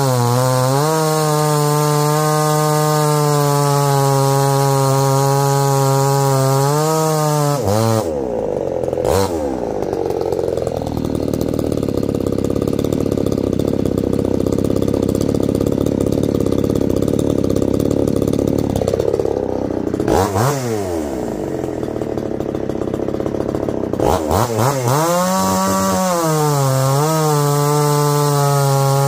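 A Supmix chainsaw with a 61.5 cc big-bore kit cutting through a log at full throttle, engine speed sagging and recovering under load. About eight seconds in it drops to idle for a long stretch, with one brief throttle blip. It then revs back up and cuts again near the end.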